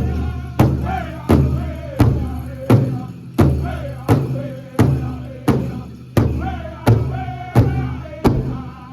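Powwow drum group singing a men's chicken dance song around a large shared hand drum. Steady drum strikes come about one and a half times a second under high, wavering group vocals.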